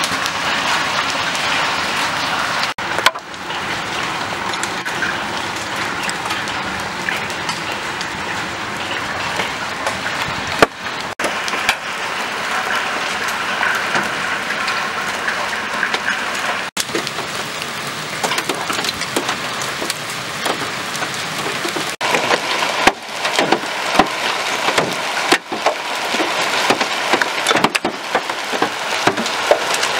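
Hailstorm: hail and heavy rain pelting down in a dense, steady patter, with many sharp knocks of hailstones striking hard surfaces that come more often near the end.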